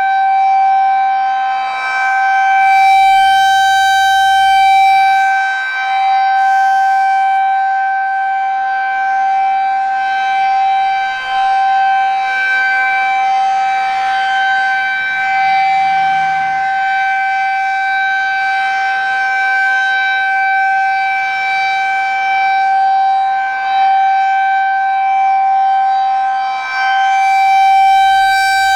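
Federal Signal 2001-SRN rotating outdoor warning siren sounding a steady tone during a routine test. Its loudness swells and fades every few seconds as the rotating horn sweeps past.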